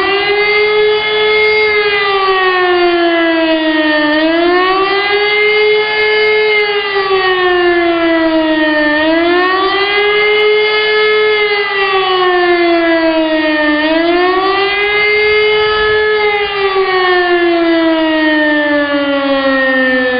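E57 electro-mechanical civil-defence siren sounding the wailing public-warning signal of a test alarm: its many-toned howl rises quickly and falls slowly about every five seconds. About 16 seconds in it stops rising and winds down in one long falling glide.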